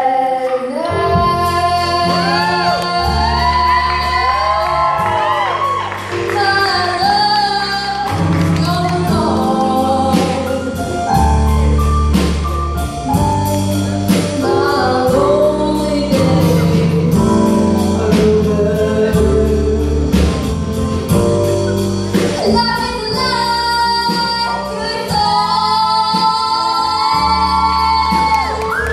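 Live band playing: a woman sings the lead over electric guitars, bass and drums, with held notes that waver in pitch.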